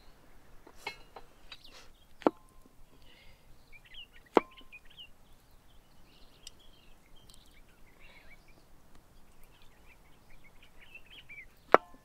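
Sharp metallic clinks of a cast-iron three-legged pot being handled, two of them ringing briefly, with small birds chirping throughout. A louder sharp knock comes near the end.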